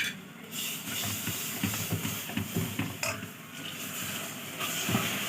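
Hot roux of ghee and flour hissing and steaming as beaten yogurt goes into the pan, with stirring scrapes underneath.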